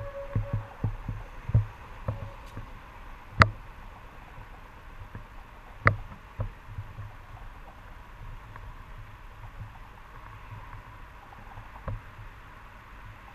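Faint street traffic with soft, irregular low thumps and a few sharp clicks, the loudest about three and a half and six seconds in.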